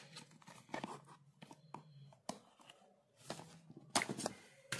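Cardboard smartwatch box being worked open by hand, the inner box sliding out of its sleeve: scattered sharp clicks and short scraping rustles of card and plastic wrap.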